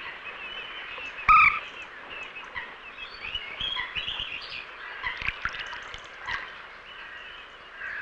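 Wild birds calling at a lake: one short, louder call about a second in, then a scatter of small chirps and twitters over a steady background wash.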